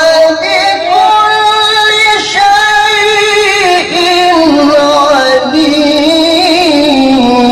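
Male qari reciting the Quran in the melodic tilawah style, holding long, ornamented notes that waver up and down in pitch, with a short break about four seconds in.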